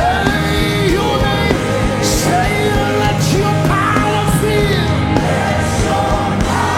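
Live gospel worship music: sustained keyboard chords over a steady bass, with a voice singing short sliding phrases over it.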